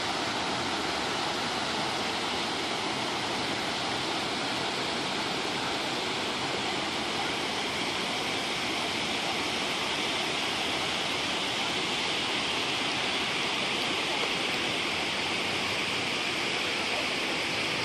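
River water rushing steadily, a continuous even hiss of flowing current.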